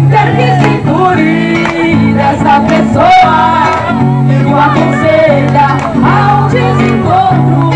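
Live band music with a singer, over guitar and a steady low bass line.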